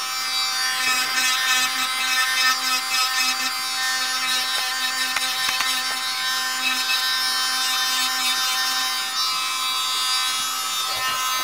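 Electric manicure nail drill running steadily in reverse with a thin bit, a steady motor whine, as it works the underside of a gel nail's free edge. It stops at the very end.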